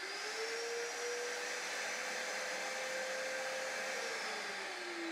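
Karcher WD3 wet and dry vacuum cleaner's motor spinning up with a quickly rising whine, then running steadily with a strong rush of air. About four seconds in, its pitch starts to fall slowly as the motor winds down.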